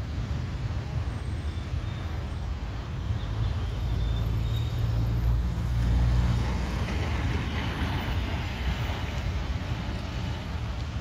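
Road traffic on a busy city street: cars and motorbikes passing, with a low rumble that swells to a peak about halfway through.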